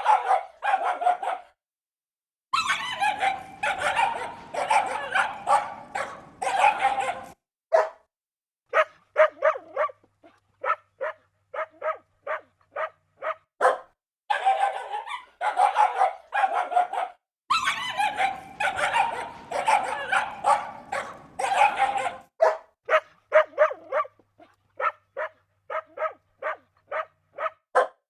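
Dogs barking angrily. Stretches of dense, overlapping barking alternate with runs of short, evenly spaced barks at about two to three a second.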